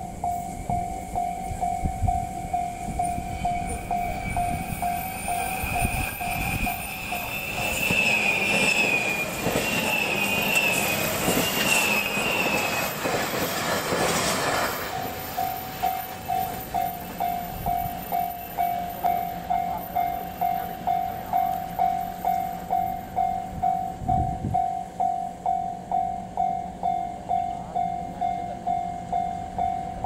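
Japanese level-crossing alarm dinging over and over at a steady pace. About 7 to 15 seconds in, a JR Shikoku 8600 series electric limited express passes close by in a loud rush of wheel and motor noise, with high squealing tones, drowning the bell out. The bell then rings on alone.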